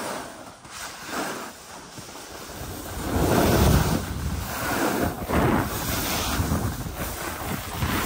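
Wind buffeting the microphone of a skier's camera during a downhill run, mixed with the hiss of skis sliding and turning on the snow. It grows louder about three seconds in and then swells and eases in uneven surges.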